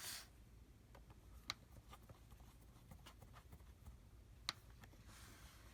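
Near silence broken by a few small sharp clicks and ticks, two louder ones about three seconds apart: small screws and a screwdriver being handled while a MacBook Pro is put back together.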